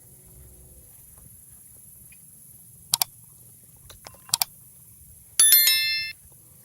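Two quick double clicks, then a bright metallic bell-like ringing with several rapid strikes, lasting under a second and cutting off suddenly.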